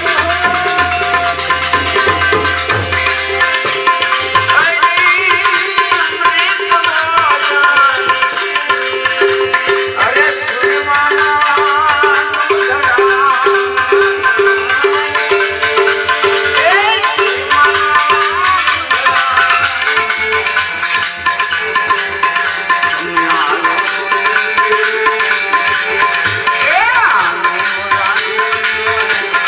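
Indian devotional folk music (santvani bhajan) played live, with tabla and rattle-type percussion under continuous melodic lines that glide and ornament in pitch.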